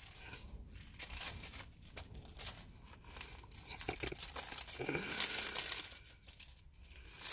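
Thin Bible pages being leafed through and turned: irregular papery rustling and crinkling.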